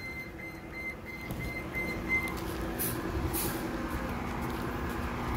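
Bus engine idling with a steady low hum. A run of short high beeps, about three a second, sounds for the first two seconds, followed by two brief hisses of air.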